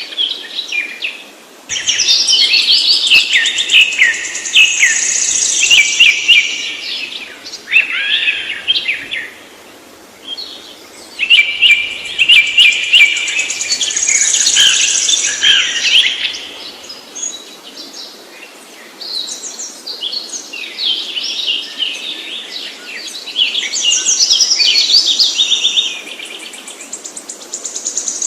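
Songbird singing: long phrases of rapid, varied chirps and trills, each phrase several seconds long with short pauses between them.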